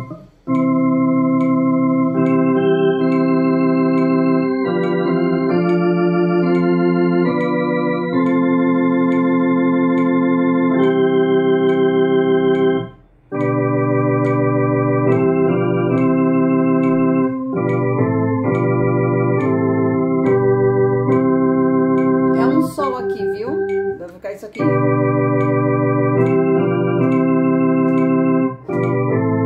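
Electronic organ playing a hymn slowly in sustained chords, the soprano and alto parts together under one hand, with faint regular ticks keeping time. The playing breaks off briefly about halfway through and again for a couple of seconds later on, with a short rustle in that second gap.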